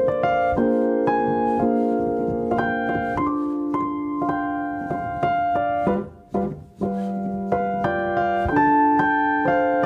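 Background solo piano music: a melody over sustained chords, with notes changing every half second or so and a brief dip in level about six seconds in.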